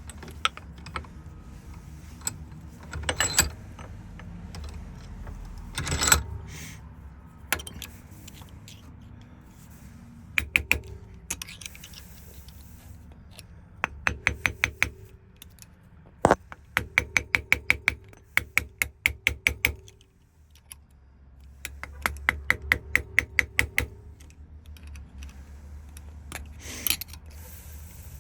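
Metal lock parts being worked at the bench: a few separate knocks in the first seconds, the loudest about six seconds in, then short runs of rapid sharp clicks, about six a second, coming and going several times.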